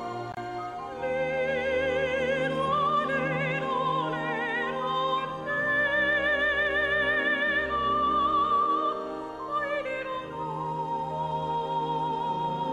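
Classical, opera-style singing with a strong vibrato over instrumental accompaniment, settling onto a long held note about ten seconds in.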